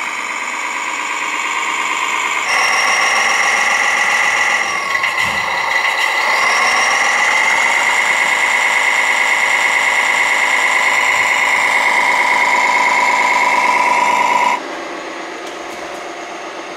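Radio-controlled tipper truck's electric drive motor and gearbox whining as it drives through sand. The whine gets louder a couple of seconds in, dips in pitch and recovers around five to seven seconds, then holds steady until the level drops suddenly near the end.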